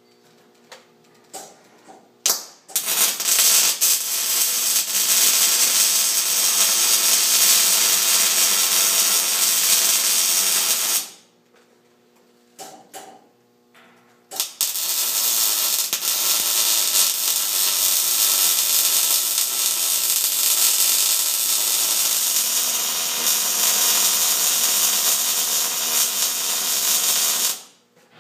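MIG welder arc burning in two long beads, one of about eight seconds and one of about thirteen, each started with a few short bursts from brief arc strikes.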